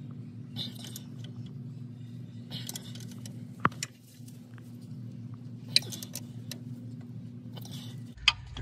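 Wrench being worked on a bolt under the transmission, with bursts of metal clinking and scraping and three sharp metal clicks, over a steady low hum.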